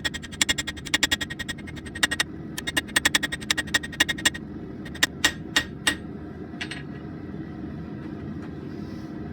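Hand hammer striking hot steel on an anvil in quick, ringing blows, about five a second, forging a small drill-bit blank. The blows slow to a few spaced strikes and stop around two-thirds of the way through, leaving a steady low rumble.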